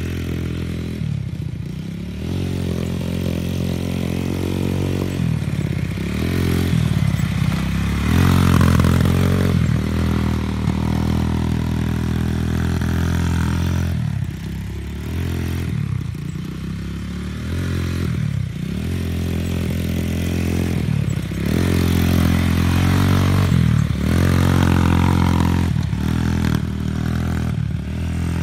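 Kawasaki KFX90 quad with a 125cc big bore kit, its single-cylinder four-stroke engine running under a rider. The revs drop and climb back again every few seconds as the throttle is eased off and reopened.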